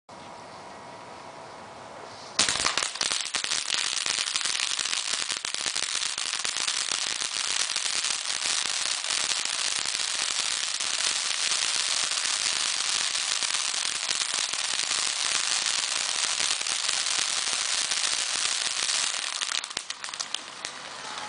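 Ground fountain firework spraying sparks, a dense hissing crackle that starts suddenly about two seconds in, runs steadily, and dips near the end.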